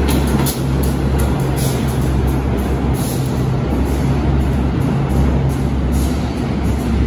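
Diesel-electric subway work locomotive running past with a steady low engine drone and clattering wheels on the rails, its sound carrying on as the train pulls away down the tunnel.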